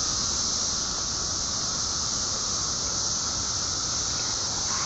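Dense chorus of periodical cicadas (17-year Brood XIII) singing: a steady, high-pitched drone with no let-up.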